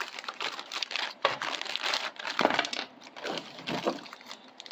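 Plastic accessory bag crinkling and rustling as it is opened and rummaged through, with small hard parts clicking and clinking against each other.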